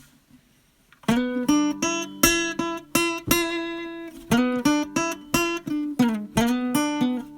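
Background music on acoustic guitar, plucked notes and chords starting about a second in.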